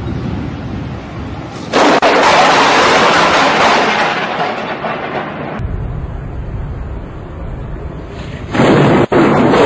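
Thunder from close lightning strikes: a sudden loud crack about two seconds in that carries on as a long rumble, then after a cut another sudden loud crack near the end. Before the first there is low, steady rumbling noise of wind and surf.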